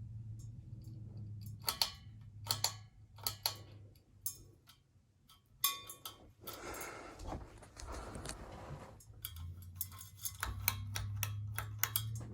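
Hunter Original 52-inch ceiling fan running, with a low steady motor hum and a scatter of sharp, irregular clicks and ticks. The hum drops away for a few seconds midway, then comes back.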